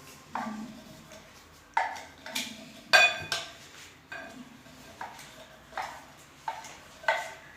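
A spoon knocking and clinking against a bowl while stirring, with about ten irregular strikes, some ringing briefly.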